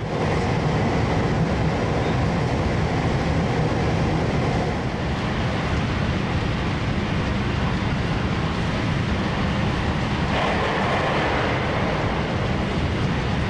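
JR West 521 series electric train running at speed through a long rail tunnel, heard from inside the train: a loud, steady rumble of wheels on rails. A brighter hiss swells about ten seconds in.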